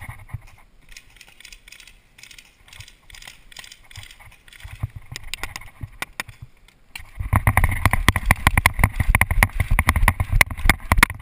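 A player's footsteps running over grass and dry dirt, with gear jolting against the body-worn camera, loud and dense from about seven seconds in. Before that, faint scattered pops and clicks.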